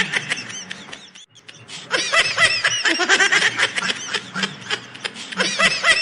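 High-pitched laughter in quick repeated bursts, breaking off briefly about a second in and then starting again.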